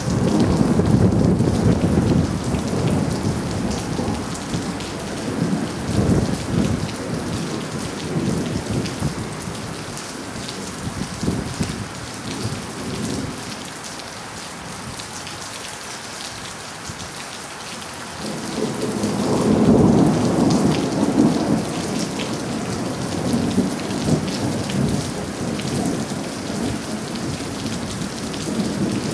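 Heavy thunderstorm rain falling steadily, with rolling thunder rumbling: loudest at the start and again about two-thirds of the way through, with a smaller rumble in between.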